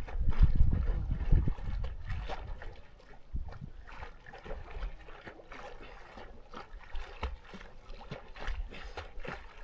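Lake water splashing and trickling in irregular small splashes, with a heavy low rumble over the first two seconds.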